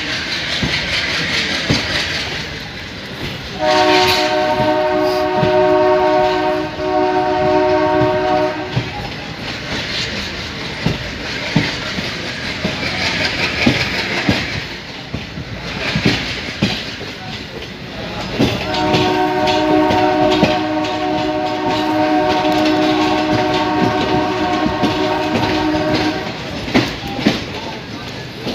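Passenger train running on the rails, with the clickety-clack of the wheels over rail joints. A WDM-3A diesel locomotive's two-tone air horn sounds twice in long blasts: once for about five seconds and later for about seven seconds.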